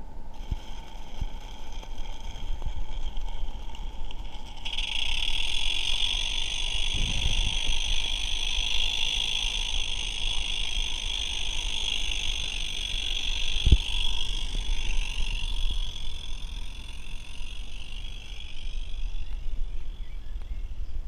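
Regner Vincent live-steam model locomotive running under steam, with a steady steam hiss that grows much louder about five seconds in and eases off near the end. A single knock sounds about fourteen seconds in.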